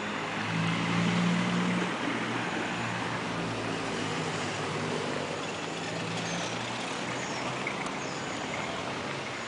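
Street traffic noise: a steady wash of passing vehicles, with the low hum of a vehicle engine that is loudest about a second in and fades away by about six seconds in.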